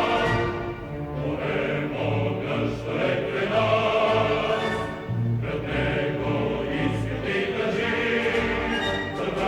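Choral music with orchestra: a choir singing over a rhythmic low pulse of bass notes.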